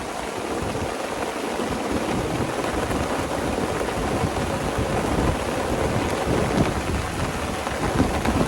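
Heavy rain pelting down on a large tarp overhead in a strong, gusty wind storm, a dense steady downpour with deep gusting rumble underneath.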